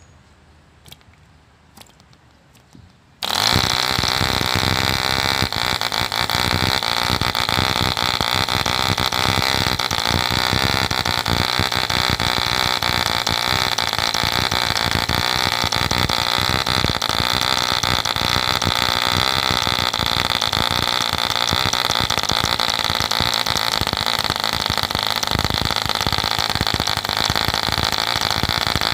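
1948 ED Mk II Competition 2 cc model diesel engine: a few faint clicks, then it fires about three seconds in and runs steadily with a loud, high-pitched buzz.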